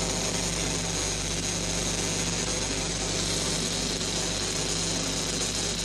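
A steady mechanical hum under an even hiss, its low tones holding constant without change.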